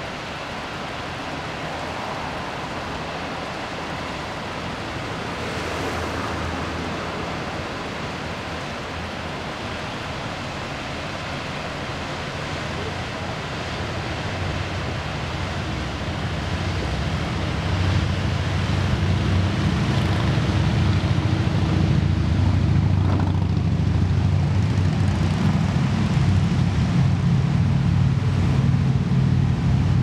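Steady rushing of a mountain waterfall and cascade. About 18 seconds in a louder low rumble with a steady hum joins and stays.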